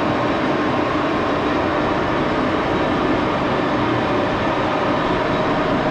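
Axelson metal lathe running steadily at speed, a constant mechanical drone with faint steady tones.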